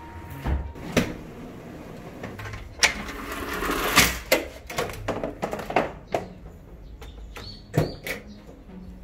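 Metal front door being unlatched and opened: a series of handle and latch clicks and knocks, the loudest clack about four seconds in.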